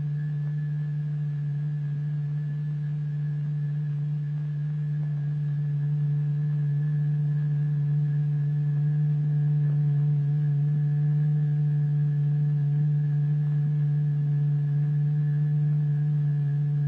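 Steady low pure tone with faint higher overtones: the vibration tone driving the membrane that the iron filings dance on. It swells slightly about six seconds in.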